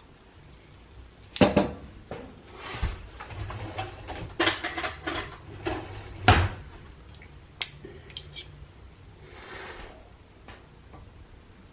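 Kitchen utensils and dishes clattering as they are handled while cooking, a run of sharp knocks and clinks with two louder bangs about a second and a half and six seconds in, and a couple of short scraping sounds.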